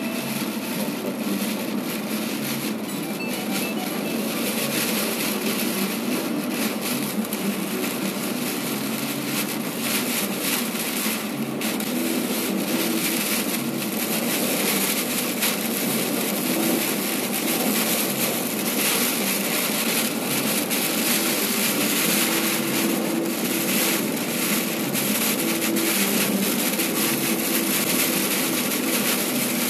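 Steady road and wind noise of a car driving along, heard from inside the car.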